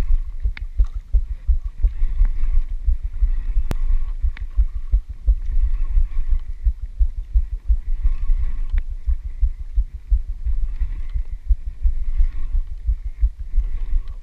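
Wind buffeting an action camera's microphone on a moving boat: a loud, irregular low rumble that fluctuates rapidly. A faint whir comes and goes every second or two, with a few sharp clicks.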